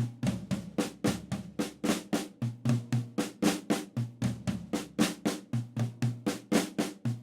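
Drum kit played with sticks: the Swiss Army triplet flam rudiment, led with the left hand and moved around the snare and toms. It is a steady, even stream of strokes, about four a second, with the deeper drums ringing under some of the groups.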